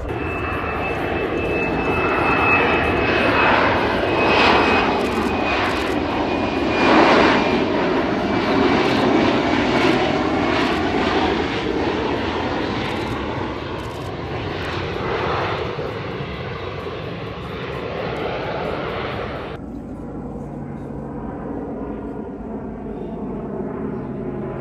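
Military jet flying over, its engine noise loud and swelling several times, with a thin whine that slowly falls in pitch. About twenty seconds in it cuts off abruptly, and the quieter, steady drone of an Airbus A400M Atlas four-engine turboprop transport flying overhead takes over.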